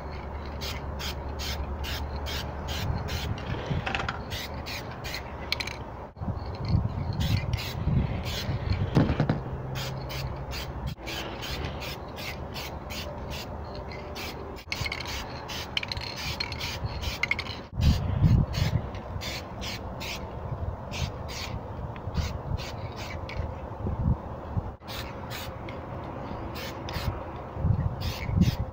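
Aerosol spray-paint can hissing in many short bursts, a few a second, with low handling rumble underneath.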